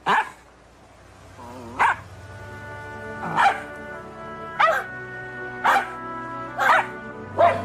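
Puppies barking: seven short, high yaps about a second apart, over music that fades in beneath them.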